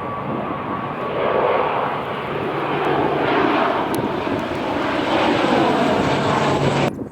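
Airliner's engines roaring as the plane passes close by, building in the middle with a slowly sweeping tone, then cutting off suddenly near the end.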